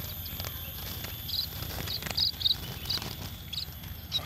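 Caged munias, mostly Javan munias, giving short high-pitched chirps, a few each second at irregular intervals.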